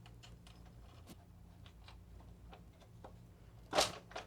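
Light scattered clicks and taps of small parts being handled and fitted into a PS5 console, with a louder sharp clatter near the end.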